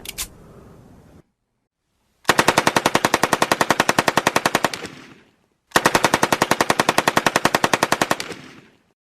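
Machine gun firing two long bursts of rapid, evenly spaced shots, each about three seconds long, with a short pause between them.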